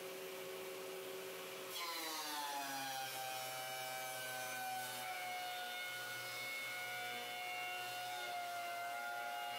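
Craftex CX125HC helical-cutterhead benchtop planer running. About two seconds in a pine board enters the cutterhead: the sound gets louder and the motor's whine drops in pitch and stays low while it cuts. The motor is choking out on a shallow cut of less than 1/16 inch, which the owner takes for a fault the warranty repair did not fix.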